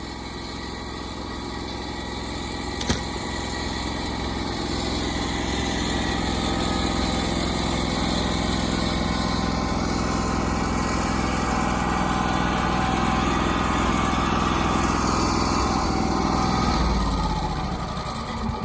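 Wood-Mizer LT35HD portable band sawmill running steadily, its band blade sawing along an oak cant, with a single click about three seconds in. Near the end the pitch drops and the sound dies down as the cut finishes.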